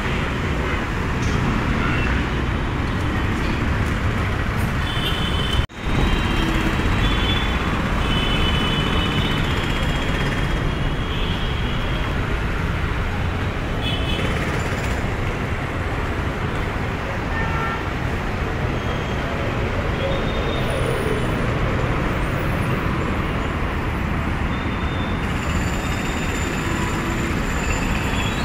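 Busy city road traffic: a steady din of passing cars, buses and motorbikes with occasional short horn toots. The sound cuts out for a moment about six seconds in.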